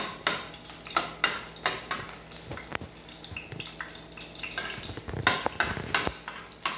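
Spoon stirring chopped garlic frying in oil in a nonstick pan: irregular scrapes and taps of the utensil against the pan over a faint sizzle, with a cluster of louder strikes about five seconds in.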